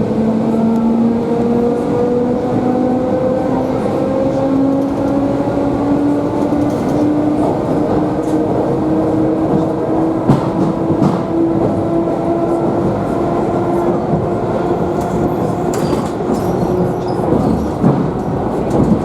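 Electric commuter train running, heard from inside the carriage: the traction motors' whine rises slowly and steadily in pitch as the train speeds up, then fades near the end. Running rumble with scattered clicks from the wheels and rail joints lies beneath it.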